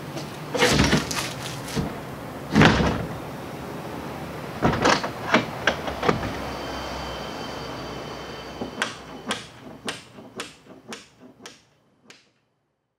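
Wooden double doors of a shed being swung shut, with a heavy thud about three seconds in as a door meets the frame, then quick clicks and knocks of the latch. Near the end comes a run of evenly spaced ticks that grow fainter.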